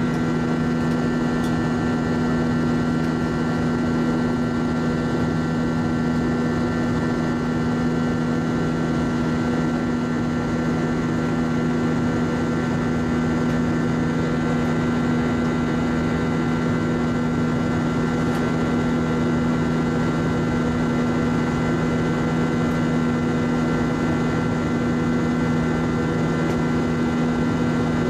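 Steady cabin drone of an Airbus A320 in flight, heard from a seat beside the engine: jet engine hum and rushing airflow, with several steady humming tones over an even roar.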